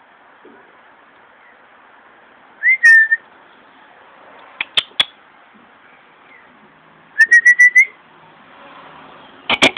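A person whistling and making sharp mouth clicks close to the microphone: one short rising whistle about three seconds in, a pair of clicks, then a quick run of about six chirping whistles, and a loud burst of clicks near the end.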